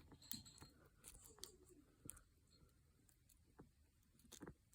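Faint, scattered small metallic ticks and scrapes of bobby pins worked as a pick and tension wrench in the keyway of an American 1165 padlock, setting its pins one by one.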